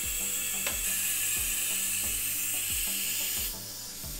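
Compressed air hissing steadily and loudly during a tool change on a CNC engraving spindle, cutting off about three and a half seconds in. Background music with a steady beat plays under it.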